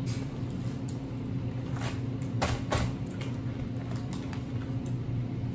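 A few short crinkles of plastic cookie-pack wrapping as hands reach into the packs, over a steady low room hum.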